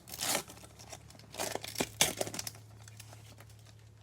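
Plastic wrapper of a card pack being torn open and crinkled, in short crackling bursts near the start and again in the middle.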